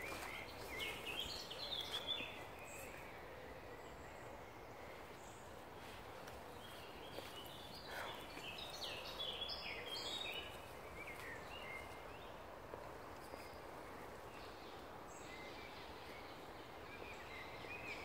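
Birds chirping and singing in short phrases, a few seconds in, again around the middle and near the end, over a faint steady outdoor background hiss.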